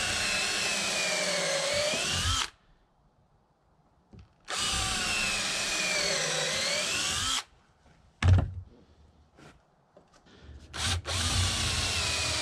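Cordless drill driving lag screws into a wooden 2x4, in three runs of about three seconds each. In each run the motor's pitch sags as the screw bites and then picks up again, and a single knock comes between the second and third runs. The battery is just about pooched.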